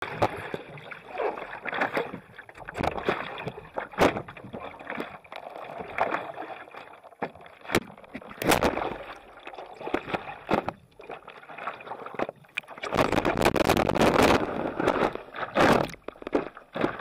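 Seawater splashing and sloshing around a stand-up paddleboard, heard close on a board-mounted action camera, with irregular sharp knocks. About thirteen seconds in comes a louder rush of water lasting about two seconds.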